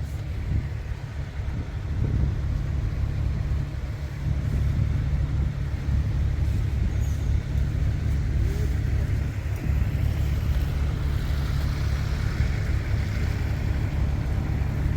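Combine harvester engine running steadily, a low, even drone with machinery noise over it.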